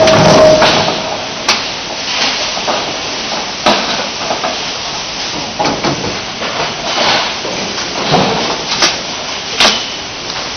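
Production line machinery for water heater tanks running with a steady noisy background and irregular sharp knocks and clanks every second or so; a brief steady tone sounds right at the start.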